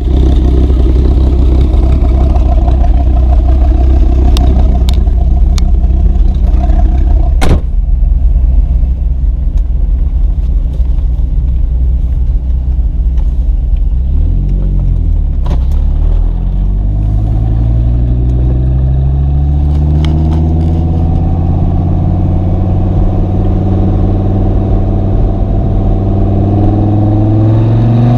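Dodge Viper SRT-10's V10 engine idling with a loud, steady burble, and a single sharp knock about seven seconds in. Around halfway it gives a short rev blip, then pulls away under load, its pitch climbing slowly and steadily as the car gathers speed in gear.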